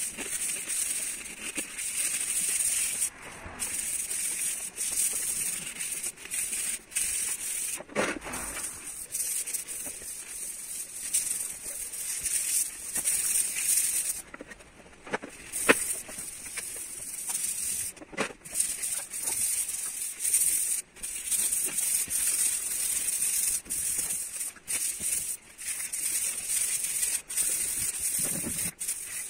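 Hand rubbing and scrubbing a car's painted roof, a scratchy hiss coming in repeated uneven strokes with short pauses and a few clicks. This is the surface preparation of the paint, light hand sanding and cleaning, before a vinyl wrap goes on.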